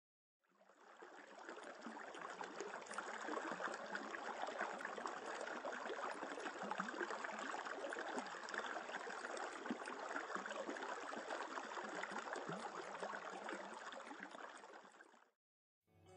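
Shallow stream running, a steady babble of water that fades in over the first couple of seconds and fades out shortly before the end.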